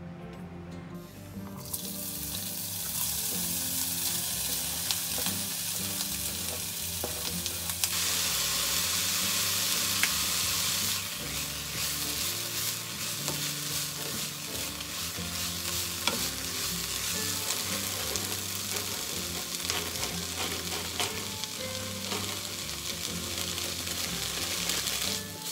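Food frying in a hot pan: a steady sizzle begins about two seconds in and is loudest for a few seconds in the middle, with light ticks of a utensil against the pan. Soft background music plays underneath.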